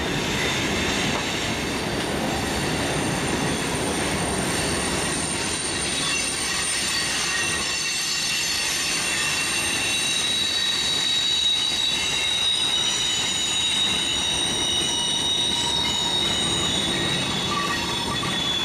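Freight train cars rolling past on a curve, the wheels squealing in several steady high-pitched tones over the rumble of the train, the squeal growing stronger about a third of the way through.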